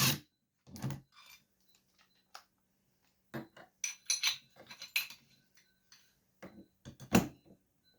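Metal tools and small parts clinking and clattering in short, irregular knocks. The knocks come in clusters in the middle and again near the end.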